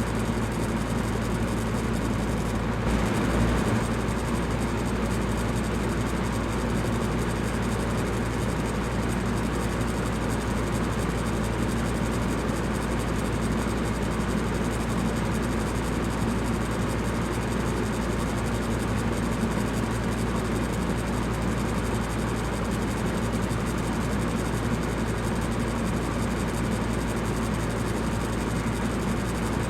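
Electric fan running steadily: an even rushing noise of moving air over a low, steady motor hum, with a brief slight swell about three seconds in.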